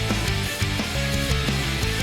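Background rock music with guitar and drums, a steady beat.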